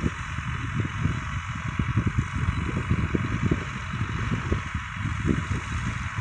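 Wind buffeting the microphone in irregular low gusts, over a steady hiss from the John Deere 2120 tractor and PZ 165 rotary disc mower running at a distance.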